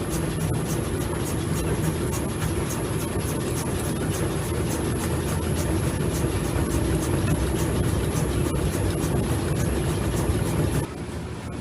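A car running during an in-shop check for driving shake and abnormal noise: a steady low rumble and hum with an even ticking about three times a second. The level drops noticeably near the end.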